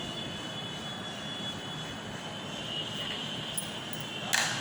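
Steady droning background noise with a faint high whine, and a short sharp scratch about four seconds in.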